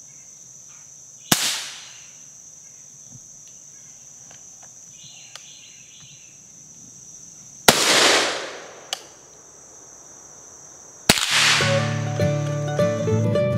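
Three single gunshots from a Savage Model 42 .22 LR/.410 combination gun, the first a CCI Quiet-22 round from the .22 barrel, each a short sharp crack with a brief echo. Insects drone steadily in the background, and bluegrass music with mandolin starts at the third shot.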